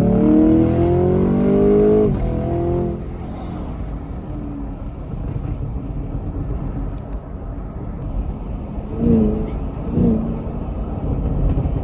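Chevrolet Camaro SS V8 accelerating hard, its engine note climbing steeply for about two seconds, then dropping at a gear change and fading into steady road and wind noise while cruising. Two short blips come about a second apart near the end.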